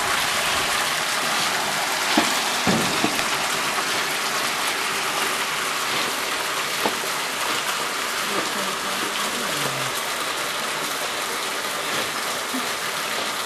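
Water gushing from a pipe into a concrete tank of wet coffee beans and splashing, a steady rushing sound, with a few short knocks about two and three seconds in.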